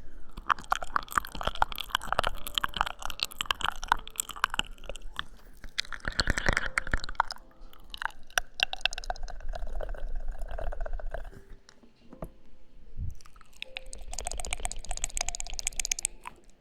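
Close-miked ASMR mouth sounds: wet smacks and clicks of lips and tongue in rapid runs, pausing twice.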